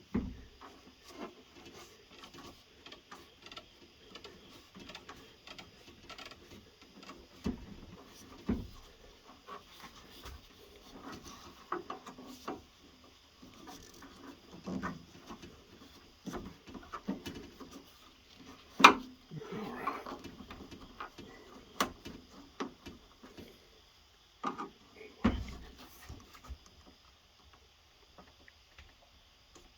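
Rubber window gasket being pushed and worked into a truck door's window channel with a blunt screwdriver: scattered taps, clicks and rubbing, with a few heavier knocks and one sharp click about two-thirds of the way through.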